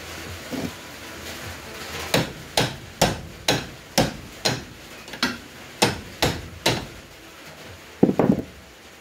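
A hammer striking metal parts of a vehicle's front suspension with about ten sharp blows, roughly two a second. Near the end comes a heavier double clunk.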